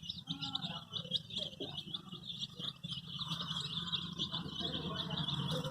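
A flock of baby chicks peeping continuously: many short, high-pitched peeps overlapping several times a second.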